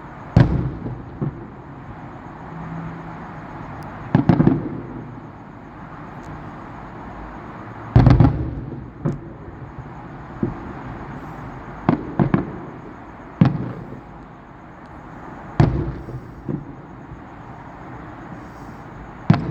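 Aerial fireworks shells bursting at a distance: about a dozen booms, irregularly spaced, some coming in quick pairs, each with a short rumbling tail.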